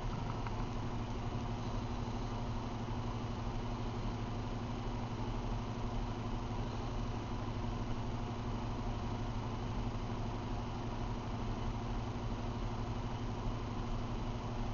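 A steady low hum with an even hiss, unchanging throughout.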